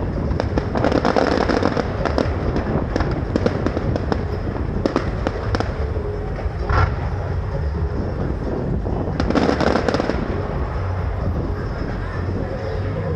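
Fireworks display: rapid cracks and pops going off in dense volleys, heaviest about a second in and again near ten seconds, over a steady low rumble of bursting shells.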